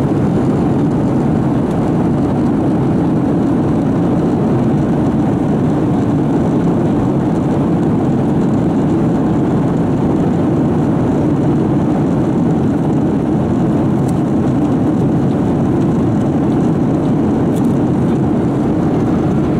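Steady cabin noise of an airliner in flight: an even, unbroken rush of engine and airflow noise heard from inside the cabin, strongest in the low range.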